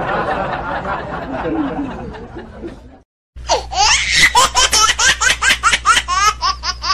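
Dubbed-in laughter sound effects. One laugh fades out over the first three seconds. After a short silence a new high-pitched laugh starts in quick rapid bursts and runs until just before the end.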